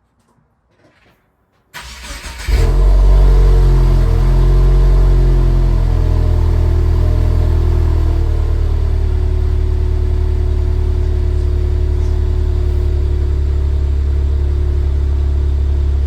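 2022 Subaru WRX's turbocharged 2.4-litre flat-four starting through a newly fitted Aeroflow Dynamics axle-back exhaust. It cranks briefly about two seconds in and catches into a loud fast idle, which eases after a few seconds into a steady idle.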